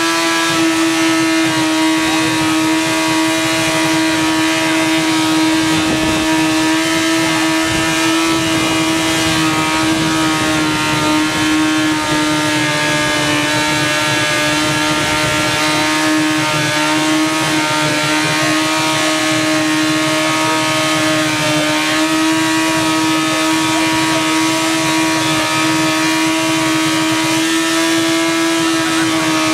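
Yamaha R1 inline-four motorcycle engine running flat out at a steady high pitch while it is run to destruction. The pitch sags slightly midway and climbs back.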